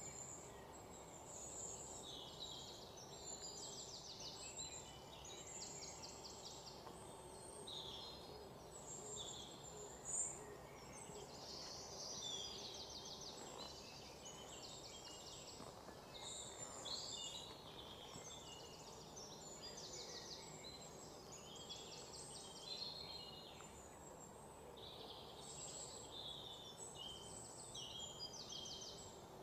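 Faint birds chirping and trilling again and again over a steady low background hum, with one brief tap about ten seconds in.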